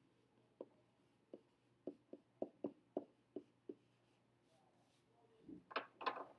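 Faint stylus taps on a tablet screen while writing by hand: about nine light, separate ticks over the first four seconds, then a short, louder rustle near the end.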